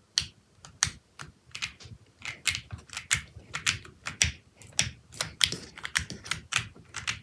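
Typing on an Akko ACR Pro 75 mechanical keyboard with an acrylic case, JWK nylon black linear switches and dye-sub PBT keycaps. The keystrokes are separate and come at an uneven pace, a few a second, each a sharp clack over a low thock.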